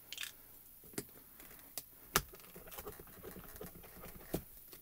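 A plastic ink pad is dabbed onto clear acrylic stamps in a stamping platform, giving faint scattered clicks and light taps, four of them sharper.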